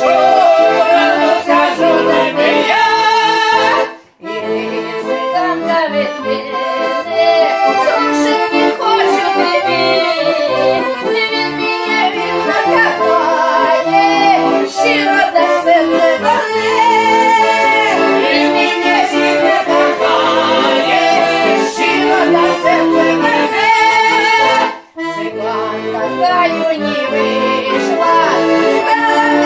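Russian folk-style song played on accordion, with singing over it. The music drops out briefly twice, about four seconds in and again about twenty-five seconds in.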